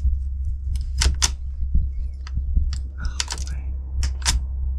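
Scattered sharp metallic clicks and clacks, about six of them, from a rifle's action and its cartridges being handled.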